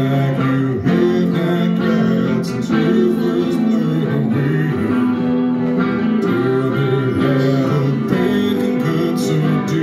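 Semi-hollow-body electric guitar with chords strummed in a steady rhythm, and a man singing along into a microphone, played live.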